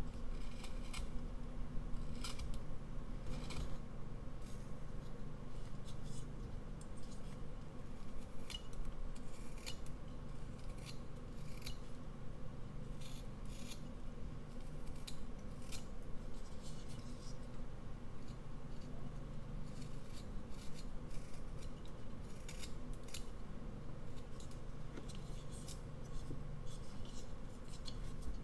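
Carving knife slicing thin shavings from a basswood figure: short, crisp cuts, one or two a second, in irregular runs with brief pauses.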